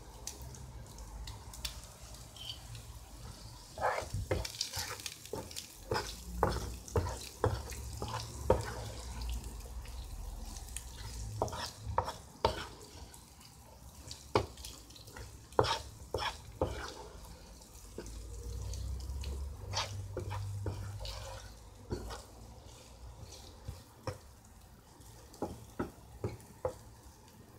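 Wooden spatula stirring diced chicken in a nonstick frying pan: irregular scrapes and knocks against the pan, over a faint sizzle of frying oil.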